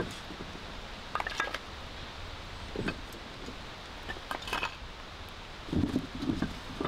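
Split firewood crackling and popping in a small folding fire stand, with scattered sharp snaps. A few dull wooden knocks near the end as pieces of firewood are handled.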